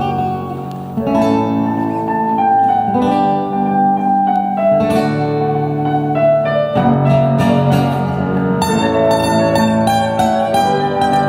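Live instrumental music on a plucked string instrument: a slow melody of ringing plucked notes over sustained chords.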